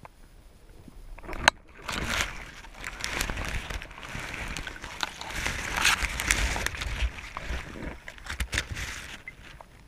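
Underwater water noise heard through a diver's camera housing: rushing and sloshing with scattered clicks and knocks, and one sharp click about a second and a half in.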